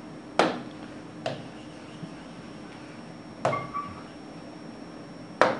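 A stylus tapping against the glass of an interactive touchscreen board while writing and erasing: four light knocks a second or two apart, the third followed by a short squeak.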